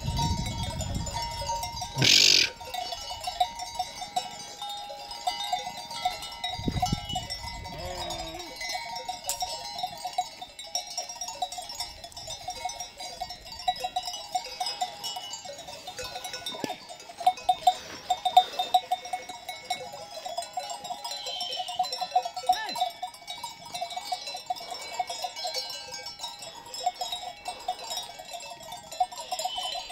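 A flock of sheep with neck bells clanking and jingling steadily, with the odd bleat. A brief loud burst stands out about two seconds in.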